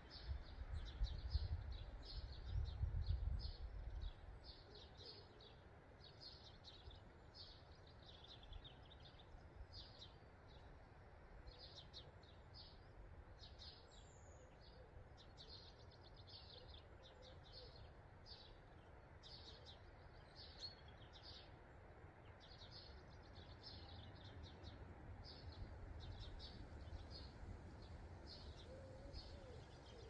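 Small songbirds chirping and singing, short high notes repeating over and over, faint. A low rumble in the first four seconds, and a few low cooing notes from a pigeon near the end.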